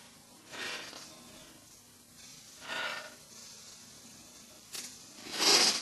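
A man's breathy gasps as he builds up to a sneeze that won't come: three sharp breaths about two seconds apart, the last the loudest, with a short click just before it.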